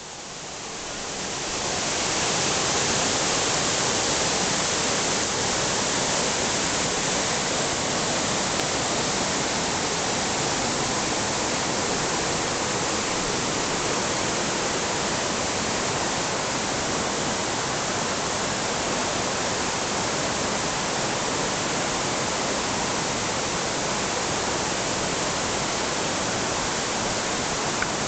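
Rushing water of a river at a waterfall, a steady even rush that grows louder over the first two seconds and then holds.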